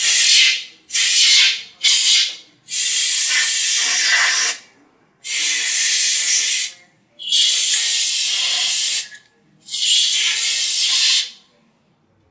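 Canned compressed air spraying through its straw nozzle in seven blasts, three short ones followed by four longer ones of about one and a half to two seconds each, blowing cleaning residue and alcohol out of a scroll pump's tip-seal grooves.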